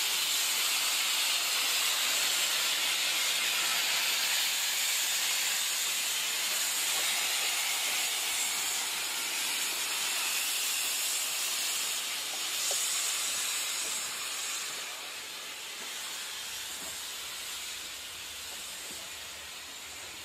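Steam locomotive venting steam in a steady hiss, which eases off over the last few seconds.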